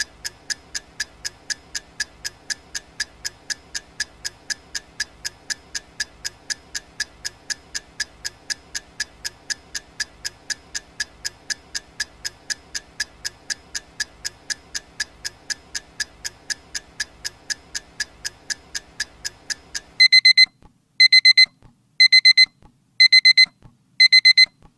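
Countdown timer ticking steadily, then about twenty seconds in the time's-up alarm goes off: five groups of rapid high-pitched digital alarm-clock beeps, about one group a second, much louder than the ticking.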